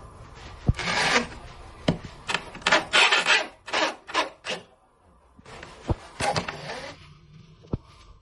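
Wood being abraded by hand in short scraping strokes, bunched in the first half and again after a brief pause, with a few sharp knocks in between.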